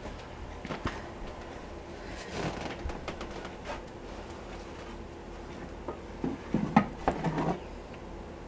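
Canned food being shifted on a wire shelf rack: scattered light knocks and clinks of cans and jars, with a busier run of clatter about six to seven and a half seconds in.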